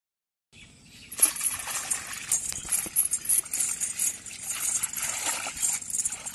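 Pond water splashing and sloshing as a hand slaps and churns the surface of a small muddy pond hole. The splashing starts about a second in and goes on in quick, irregular splashes.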